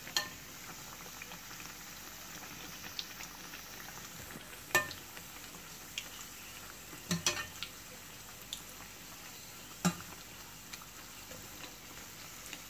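Samosas deep-frying in oil in a small stainless steel pan: a steady, even sizzle. A slotted metal skimmer turning them knocks against the pan several times with sharp clicks.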